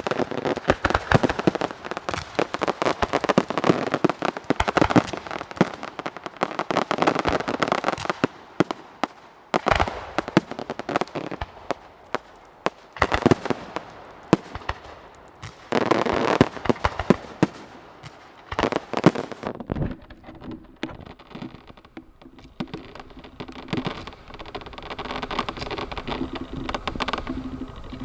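Fireworks going off: a dense, rapid crackle of bangs and pops for the first eight seconds or so, then separate loud bursts of crackling every few seconds. About two-thirds through, the firing thins to scattered pops over a steady low hum.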